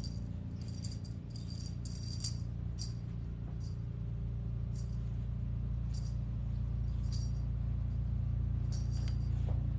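Cat wand toy rattling in short, irregular jingles as a kitten bats and grabs at it, over a steady low hum.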